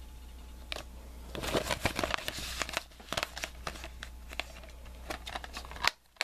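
Hands handling plastic DVD cases and paper packaging: crinkling and rustling with many sharp plastic clicks.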